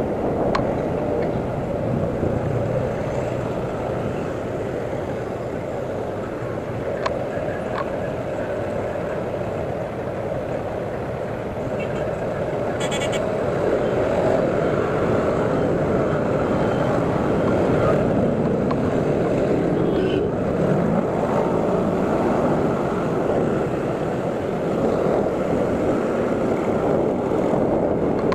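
Steady rushing road and traffic noise while riding an electric scooter through city traffic: wind over the microphone mixed with the running engines of surrounding cars and motorcycles, a little louder in the second half.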